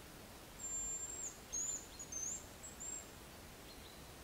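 Hazel grouse whistling: a high, thin drawn-out note ending in a little downward flick, followed by a few shorter hooked notes, stopping about three seconds in.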